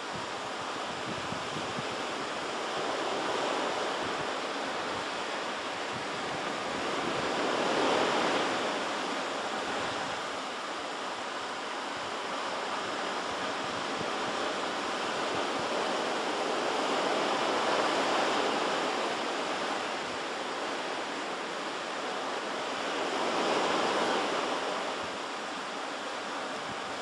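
Ocean surf washing in, a steady rush that swells and eases several times as waves break.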